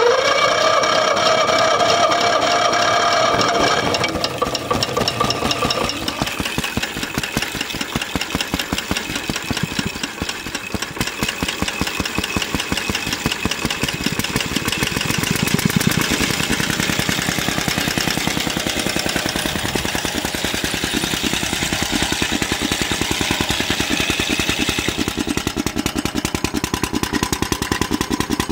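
Small engine of a homemade tractor running just after a cold start, firing rapidly and evenly. For the first four seconds or so it is louder, with a steady whine, and then it settles a little lower.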